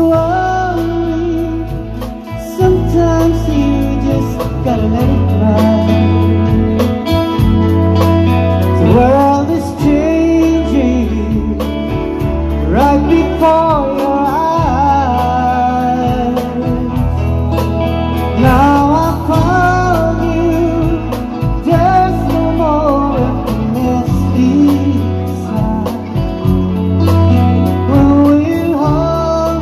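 Live pop band playing a song, with a woman singing the lead over electric guitar, keyboard, bass and drums.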